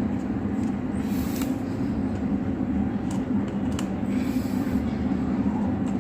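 A steady low rumble, with a few light clicks and taps about one, three and four seconds in from handling the wires and terminals of a three-pin socket.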